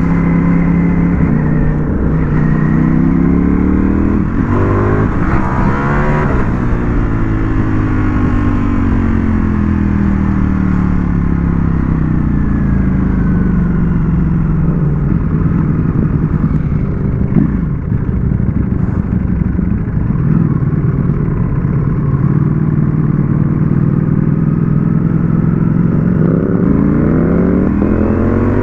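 Ducati Panigale V4S's V4 engine under way: it revs up hard about five seconds in, then its pitch sinks slowly as the rider eases off and holds a steadier note, and it climbs again near the end.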